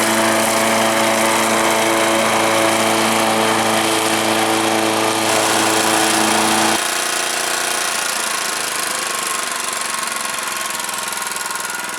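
Engine of a 1987 Honda self-propelled push mower running steadily. About seven seconds in, its steady hum drops away abruptly and it runs on quieter.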